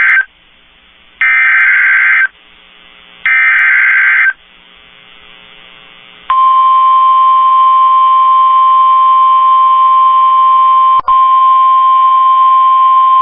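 NOAA Weather Radio Emergency Alert System header: the tail of one burst of SAME digital data tones, then two more one-second bursts. After a pause of about two seconds comes the steady 1050 Hz warning alarm tone, which drops out for an instant about eleven seconds in. Together they announce a severe thunderstorm warning.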